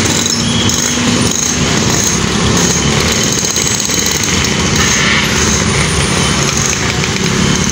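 Vehicle engines running close by, a loud, steady, rough rapid chatter.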